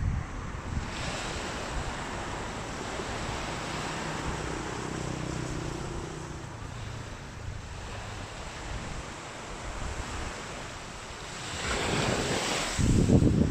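Surf washing onto the beach in a steady hiss, with a faint low engine hum in the middle. Near the end a bigger wash of surf swells up, then wind buffets the microphone with a loud low rumble.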